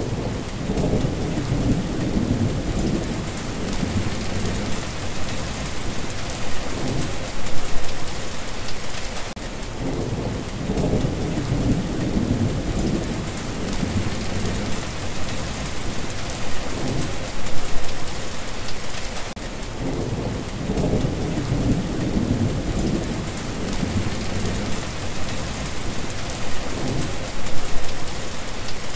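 Steady rain falling, with low rolling thunder rumbles that swell and fade again and again, the loudest about every ten seconds.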